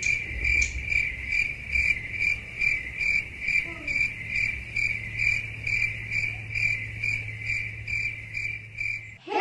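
Stock cricket-chirping sound effect, an even chirp repeating about three times a second, starting and stopping abruptly: the comic cue for awkward silence and boredom while waiting.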